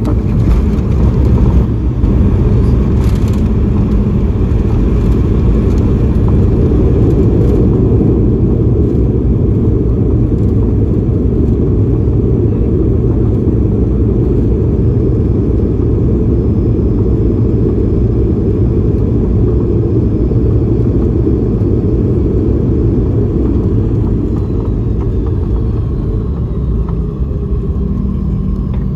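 Steady low rumble inside the cabin of a Boeing 717-200 airliner, with a few faint clicks in the first few seconds. It eases slightly toward the end.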